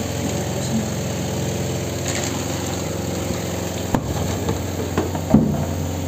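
Spin-dryer motor of a Mika twin tub washing machine running steadily, spinning the water out of the washed clothes. A couple of light knocks come near the end.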